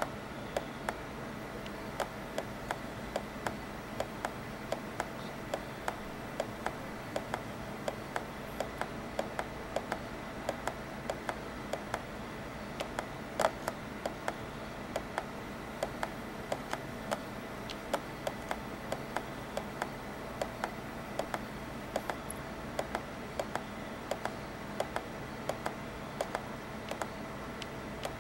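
Sharp, irregular clicks, about two a second with one louder click midway, as a Joule thief's primary coil circuit is made and broken by hand. Faint steady tones sit underneath.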